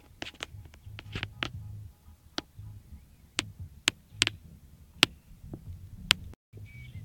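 About a dozen sharp clicks at irregular intervals over a low rumble, with the sound cutting out for a split second near the end.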